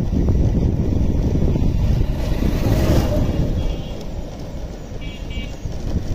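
Steady low rumble of a moving open vehicle with wind on the microphone, easing off a little in the second half.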